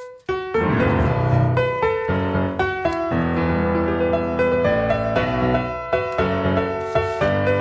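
Background piano music; it drops out for an instant about a quarter second in, then carries on.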